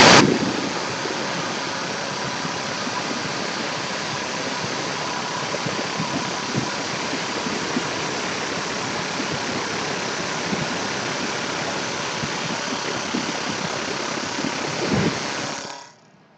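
CNC backknife lathe cutting a spinning wooden spindle blank: a steady hiss of the knife shearing wood, with scattered small crackles. It is loudest at the very start and stops abruptly shortly before the end.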